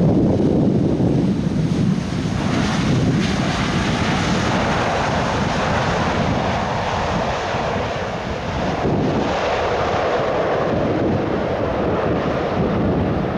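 Jet engine noise from a China Eastern Airbus A350-900's two Rolls-Royce Trent XWB turbofans as the airliner rolls out on the runway after landing: a loud, steady rumble, with wind buffeting the microphone.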